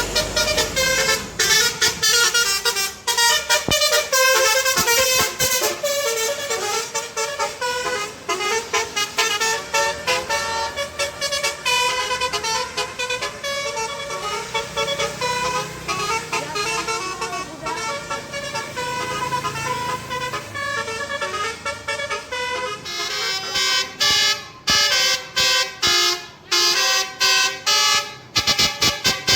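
Bus 'telolet' basuri horn, a multi-tone melody horn, playing a fast tune of short pitched notes. In the last few seconds the notes come as louder, separate blasts.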